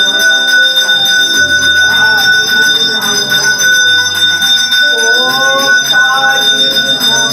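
Temple hand bell rung continuously for the aarti before the Sai Baba idol, a steady ringing. Voices singing a devotional chant join in for a couple of seconds past the middle.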